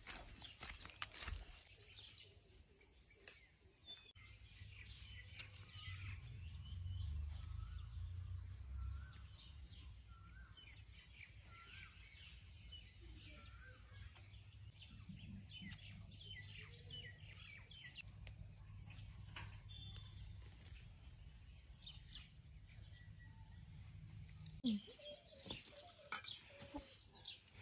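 Rural garden ambience: many small bird chirps and calls over a steady high-pitched whine and a low rumble, with a few footsteps at the start. Near the end the whine stops and a few clicks and knocks follow.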